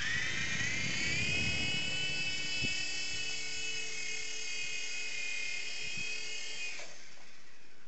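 Small electric R/C helicopter (Falcon-X) spinning up with a rising whine, then running at a steady high pitch before cutting off sharply near the end, with a couple of light knocks along the way. It is running on a weak battery that does not hold its charge, so it barely gets off the floor.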